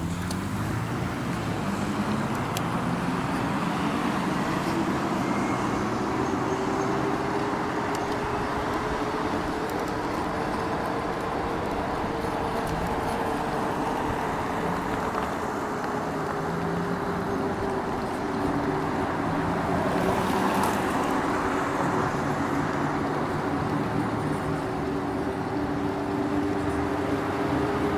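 Steady city traffic and road noise heard from a moving e-bike, with a low hum that drifts slowly up and down in pitch. There is a brief louder rush about twenty seconds in, like a vehicle passing.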